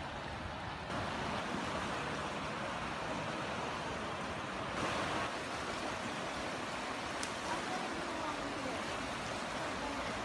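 Fast-flowing floodwater rushing in a steady wash of noise, stepping up a little about a second in.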